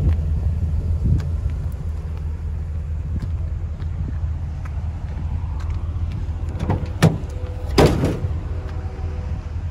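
Pickup truck tailgate being opened: a sharp latch click about seven seconds in, then a louder metallic clank as the tailgate drops open about a second later, over a steady low rumble.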